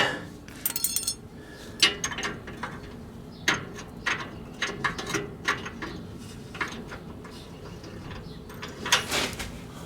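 Irregular small metal clicks and scrapes as a screw and a probing tool are worked against a frame bracket under a pickup truck, trying to get the screw to catch its thread.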